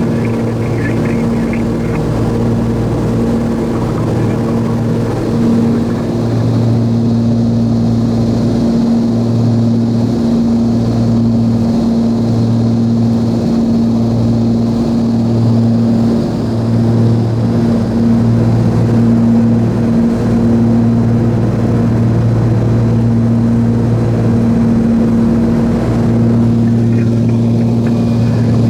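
The Cessna 340A's two turbocharged Continental TSIO-520 six-cylinder engines and propellers running in flight. They make a loud, steady drone with a slow, uneven throb.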